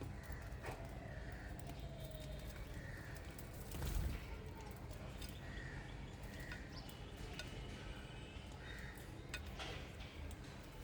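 Small birds chirping at intervals, short calls repeated every second or so, over a steady low background rumble, with a few sharp clicks scattered through.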